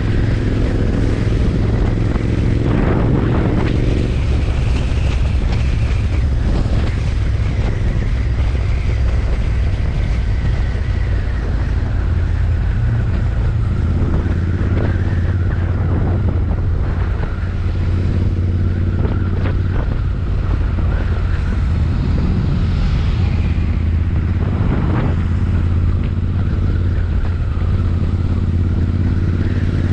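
Royal Enfield Interceptor 650's parallel-twin engine and exhaust running steadily under way, with wind on the microphone.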